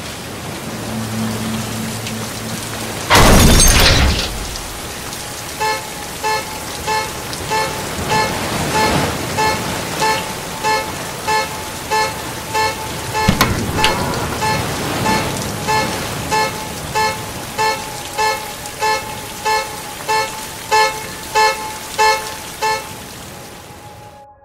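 Steady rain falling, with a low hum for the first few seconds, then a loud crash about three seconds in. After the crash a car horn beeps in short regular blasts, about three every two seconds, until shortly before the end.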